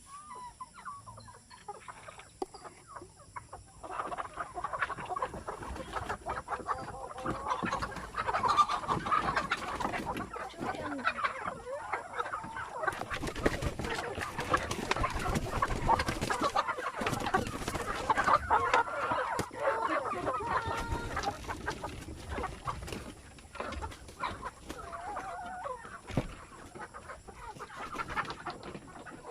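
A flock of free-range chickens clucking, the calls growing dense and busy about four seconds in as the birds come out to feed, with many short taps and rustles among them.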